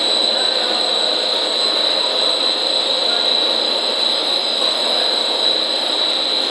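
Dog-chew production line machinery running: a steady, loud mechanical noise with a constant high-pitched whine over it.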